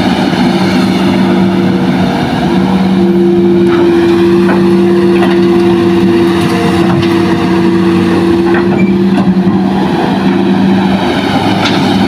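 Hitachi hydraulic excavator's diesel engine running steadily under load as it digs and loads soil into a dump truck, with a steady drone and a few faint knocks of dirt and rock.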